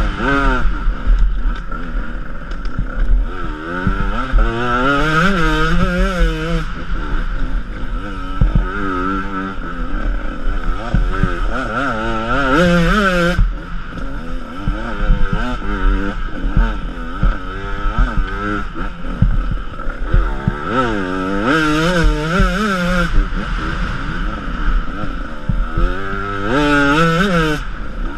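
Enduro dirt bike engine revving hard and dropping back again and again as the rider accelerates and shuts off through the turns of a dirt trail, heard close from a helmet-mounted camera. Frequent short knocks from bumps in the track.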